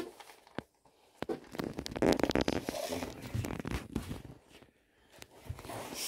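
Close rustling with a quick run of clicks and small knocks near the microphone, heaviest in the middle and fading off, with a shorter bit of rustling near the end.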